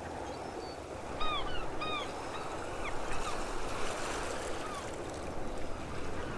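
Ocean waves washing on a shore with seagulls calling over them, the two clearest calls just over a second in and about two seconds in, with fainter calls after.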